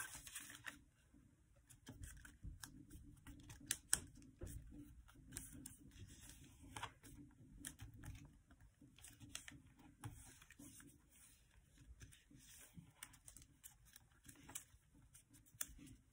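Faint rustling and crinkling of a paper sheet being folded and creased by hand, with scattered light clicks and one sharper tap about four seconds in.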